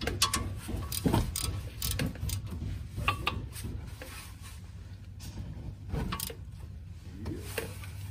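Hand tools and metal parts clicking and knocking at irregular intervals while a car's front wheel hub assembly is being bolted back together, over a steady low hum.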